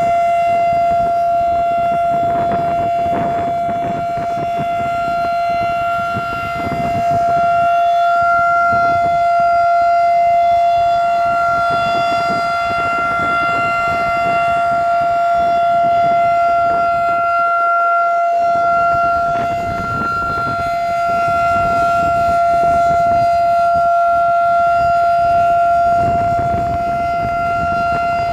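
Federal Signal 2001 rotating tornado siren sounding a steady single tone, loud, its level slowly swelling and fading as the horn turns.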